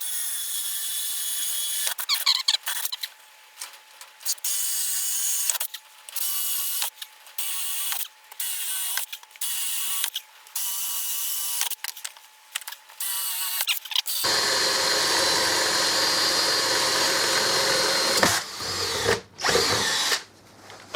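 Corded electric drill with a 20 mm wood-boring bit drilling a row of large holes through a wooden board, in repeated short runs of about a second each that start and stop sharply. A longer, fuller run comes about two-thirds of the way in.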